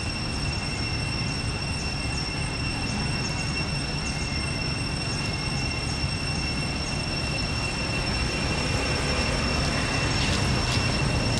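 Steady, high-pitched insect drone of cicadas, one unbroken whine with a fainter overtone above it, over a low rumble.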